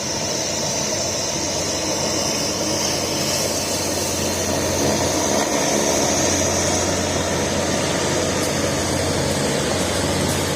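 Passenger hovercraft running its engines and propellers as it comes in to land: a steady low hum under a high whine and a rush of air noise. It gets slightly louder over the first half.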